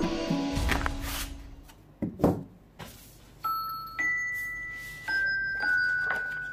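Background music fades out, then stiff laser-cut wooden kit sheets are slid and set down on the table with a sharp knock about two seconds in. From about halfway, a new music track begins with slow single bell-like notes, about one a second, each ringing on and dying away.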